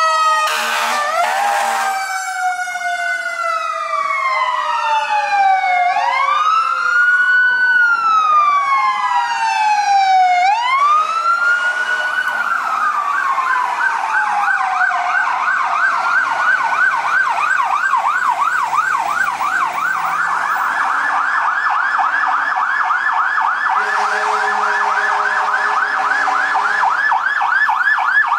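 Several fire truck sirens wailing, slow rising-and-falling sweeps that overlap, then changing to a fast yelp with a second yelp joining in. A low steady horn sounds briefly about a second in and again near the end.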